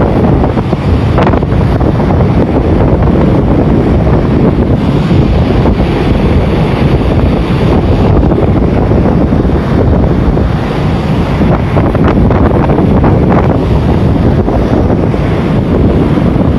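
Strong wind buffeting the microphone on a moving ferry, a loud steady rush of noise.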